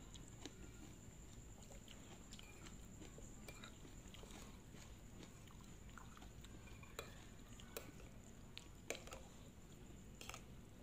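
Quiet chewing of noodles, with a few light clicks of a metal fork and spoon against a ceramic plate, the loudest of them in the second half. A faint steady high-pitched whine sits underneath.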